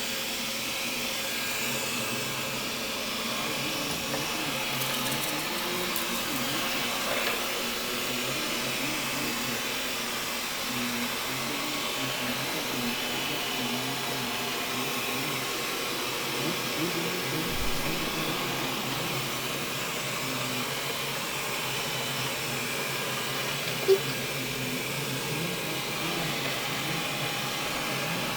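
Xiaomi robot vacuum cleaner running steadily while it cleans, its suction fan and brushes making an even hum, with one short sharp knock about 24 seconds in.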